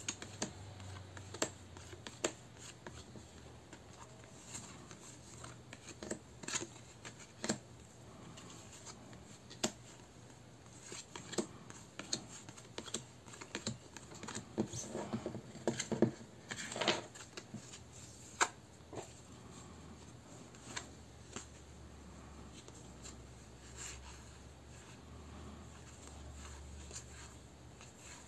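Tarot cards being handled and laid down one by one, giving quiet, irregular light clicks and taps, with a busier stretch in the middle.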